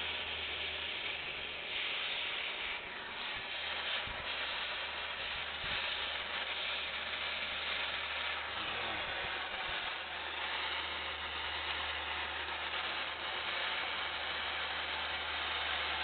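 MAP gas hand torch burning with a steady, continuous hiss as its flame heats a copper pipe joint for sweat soldering.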